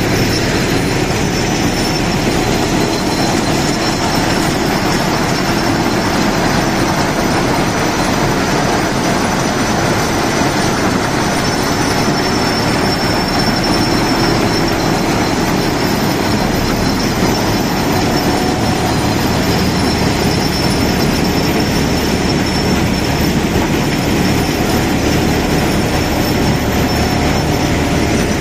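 RM900 high-output ballast cleaning machine running on the track: a loud, steady, dense machine noise that goes on without a break.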